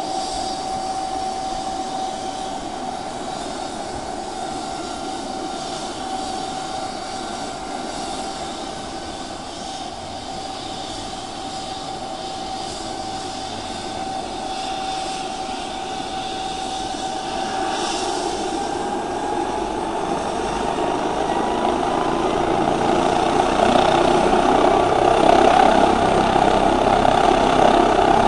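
Air ambulance helicopter on the ground with its turbine whining at a steady pitch. About two-thirds of the way in the whine rises in pitch and the overall noise grows louder.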